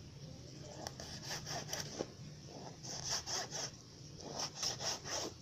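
Kitchen knife cutting and scraping through salted dried fish on a cutting board, in quick rasping strokes that come in several short bursts, as the flesh is worked off the bones.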